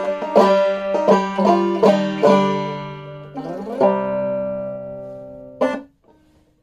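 Clawhammer banjo playing the closing phrase of a tune: quick plucked notes, then chords left ringing and slowly fading. A final sharp strum near the end is cut off abruptly, muted by the picking hand.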